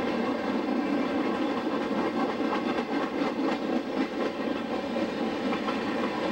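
Freight train cars rolling past on the rails: a steady rumble and rattle of the wheels, with a run of sharper wheel clicks over the rail joints in the middle.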